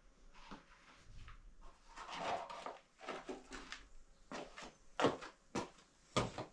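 Kitchen utensils and cookware being handled: a scraping stretch, then a run of sharp knocks and clacks in the second half.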